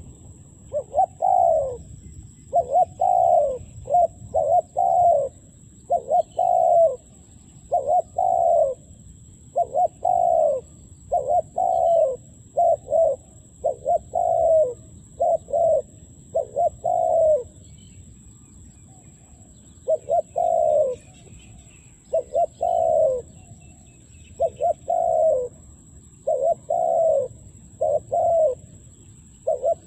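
Spotted dove cooing: quick clusters of short, falling coo notes, repeated over and over, with a pause of about two seconds just past halfway.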